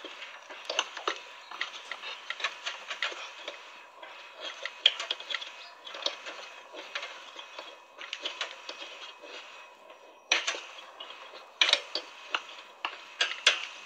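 Small hand tube cutter being turned around a fridge's refrigerant pipe to cut through it: a dense, irregular run of small clicks and scrapes, with a few louder clicks near the end.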